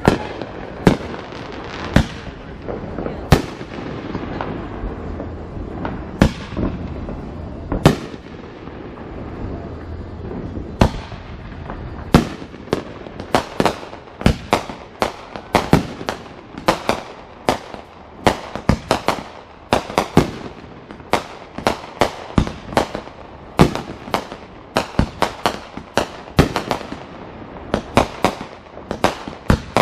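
Fireworks going off in a string of sharp bangs. They are spaced out for about the first twelve seconds, then come rapidly, several a second.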